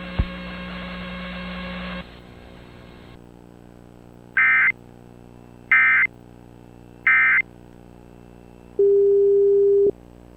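Emergency Alert System end-of-message data bursts: three short digital tone bursts about 1.3 seconds apart, marking the end of the alert, over a low electrical hum. Near the end a steady lower beep lasts about a second.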